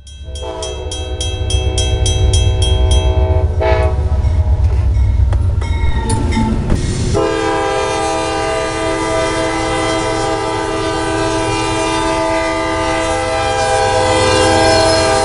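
Diesel locomotive horn sounding a long, loud multi-tone chord from about seven seconds in, over the heavy rumble of a passing train. In the first three seconds a fast ringing repeats about three times a second over the rumble.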